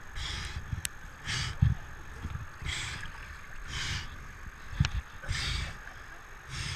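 A swimmer's heavy, gasping breaths close to the microphone, one about every second and a half, while he clings beside a whitewater raft after being held underwater. Water sloshes and rumbles under the breaths.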